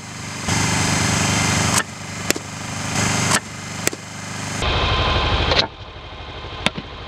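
A softball bat striking tossed softballs: three sharp cracks about a second and a half apart, over a steady engine-like hum that cuts in and out abruptly.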